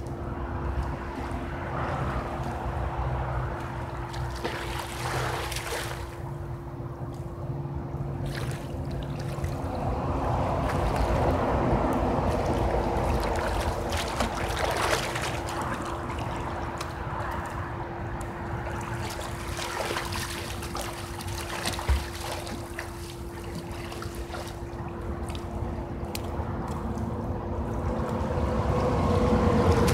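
Pool water lapping and splashing gently as a swimmer moves through it, over a steady hum. A single short knock about two thirds of the way through.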